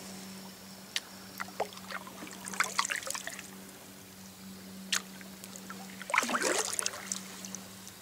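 Kayak paddle strokes in calm water: two bouts of splashing and dripping, about two and a half and six seconds in, with a few sharp clicks between them over a faint steady hum.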